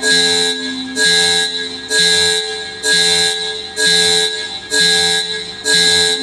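Loud sound-check music: a heavy beat that repeats about once a second over sustained steady tones.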